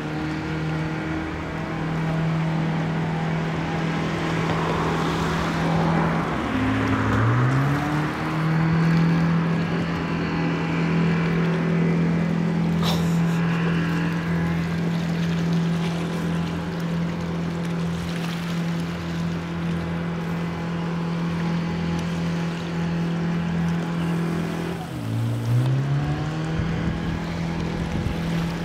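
Boom boat engine running at high revs, its pitch dropping and climbing straight back up twice, about six seconds in and near the end, as the throttle is eased and reopened while it pushes logs. A single sharp knock about halfway through.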